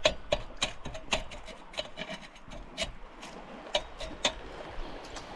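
Irregular sharp clicks and light rubbing, a few each second.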